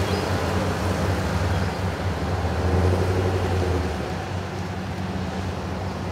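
Ambulance engine running as it drives away: a steady low hum that swells about three seconds in, then fades.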